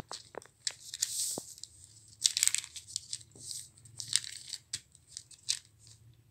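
Cloth rustling and crinkling in irregular bursts as it is handled for cutting and sewing, with several sharp clicks, most of them in the first second and a half.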